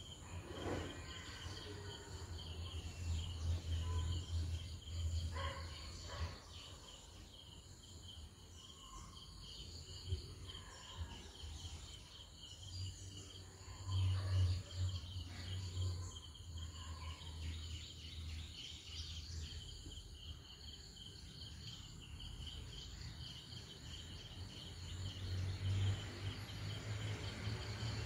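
Steady insect chirring, high and continuous, over a low rumble that swells and fades, with a few faint knocks.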